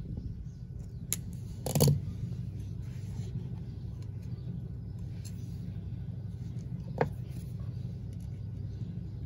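Pliers working the end of a thin aluminium tube, crimping and bending it. There are a few sharp metal clicks, a louder knock just under two seconds in and another click later, over a steady low rumble.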